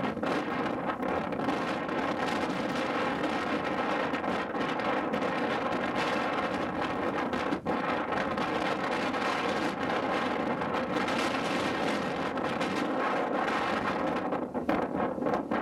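Strong wind blowing over the microphone: a loud, steady rushing noise that flickers with gusts.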